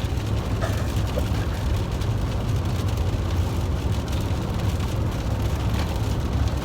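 Steady low rumble of a car driving, heard from inside the cabin, with a faint patter of rain.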